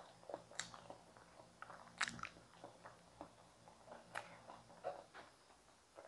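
A person eating steamed potatoes close to the microphone: faint chewing with scattered short mouth clicks, the loudest about two seconds in.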